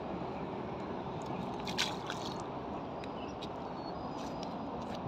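Steady outdoor background rumble with a few short, light clicks and small water sounds, the loudest about two seconds in.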